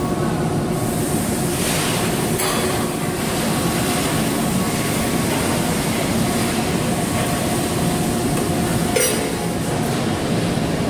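Steady machinery noise of a large workshop, with faint steady tones running through it. There is a short click about two and a half seconds in and a sharper metallic click about nine seconds in.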